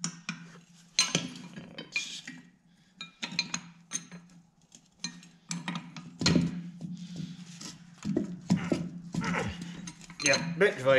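Pliers clinking and scraping against the steel clevis and pin on an air brake chamber's pushrod, in a string of sharp metallic clicks as the pin is worked loose by hand, with a heavier knock about six seconds in.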